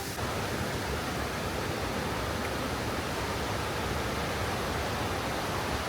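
Steady rushing roar of a waterfall: an even noise of falling water with no distinct events.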